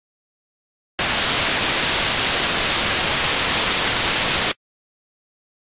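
Digital silence broken by a loud burst of even hiss, like static, that switches on about a second in and cuts off abruptly about three and a half seconds later: an audio glitch, not a sound from the scene.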